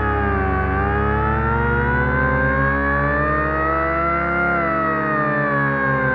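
Behringer MonoPoly analog synthesizer holding a sustained drone. Its upper pitched tone dips, then glides slowly up to a peak about four and a half seconds in and falls again, like a siren, over a steady low bass note.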